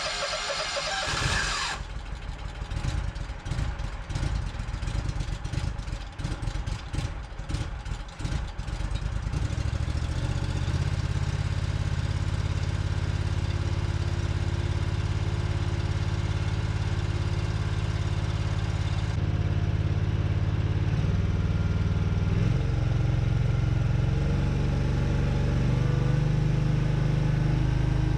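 The repowered engine of an old OMC Mustang 330 skid steer being started: a brief starter whine, then the engine catching and running unevenly, stumbling for several seconds as it fires on a cold start. From about ten seconds in it settles into a steady idle, with small changes in engine speed in the last few seconds.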